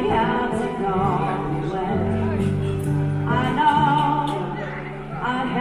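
Music with singing voices, sustained notes held over a steady low accompaniment.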